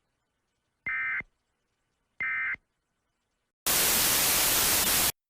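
Two short buzzy digital data bursts about a second and a half apart: the closing end-of-message tones of an Emergency Alert System broadcast, the last two of three. Then about a second and a half of loud white-noise static that cuts off abruptly.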